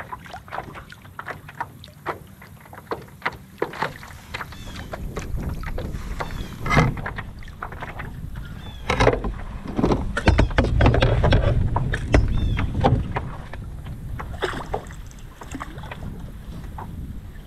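Choppy lake water knocking and splashing against the hull of a Hobie Lynx kayak in irregular slaps, with wind rumbling on the microphone, strongest a little past the middle.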